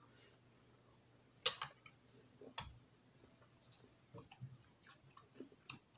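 Quiet eating sounds at the table: one sharp click about one and a half seconds in, another a second later, then scattered small clicks, over a faint steady low hum.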